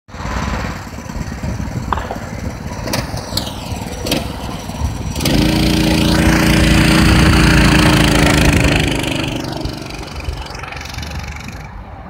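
Small single-cylinder mini bike engine (a Predator 212 swapped into a Manco mini bike) running low at first, then opened up about five seconds in as the bike pulls away. It holds a loud, steady note for a few seconds, then drops slightly in pitch and fades as the bike rides off.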